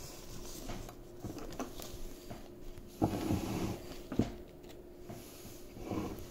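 Scattered knocks and rustling, the loudest a thump about three seconds in and a sharp knock a second later, over a faint steady hum.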